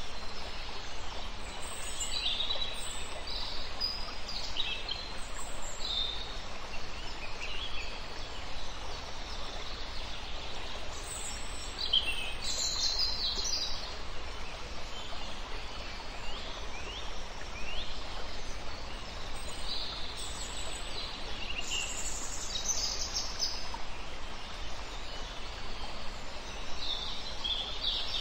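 Wild birds chirping and singing in short scattered calls and trills over a steady background hiss.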